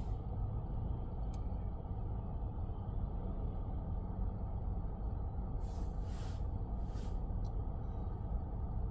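Steady low rumble of a car driving on the road, its tyre and engine noise, with two short hissing swishes about six and seven seconds in.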